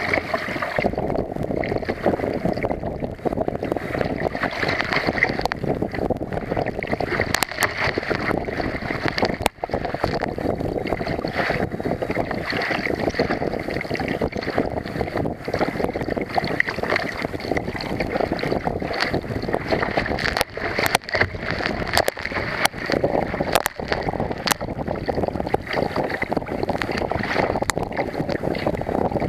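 Wind buffeting the microphone of a deck-mounted camera on a Wilderness Systems Tempest 170 sea kayak in rough, building seas, with water rushing and washing against the boat. Scattered sharp ticks come through the steady noise.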